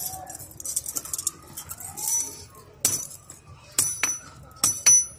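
Steel chain links jingling as they are handled, then four ringing hammer blows in the second half as a chain hook held with pliers is struck on a steel disc used as an anvil, repairing a buffalo chain.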